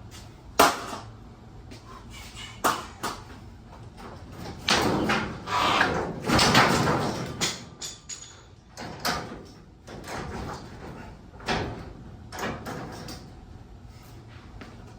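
Sectional garage door panels and hardware being handled during repair. A sharp bang comes about half a second in, followed by scattered knocks and clanks and a few seconds of scraping in the middle.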